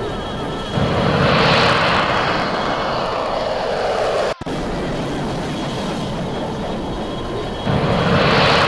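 Jet aircraft flying past: a steady engine roar that swells about a second in and falls in pitch as it passes. The sound cuts off abruptly about four seconds in, and a similar swell begins near the end.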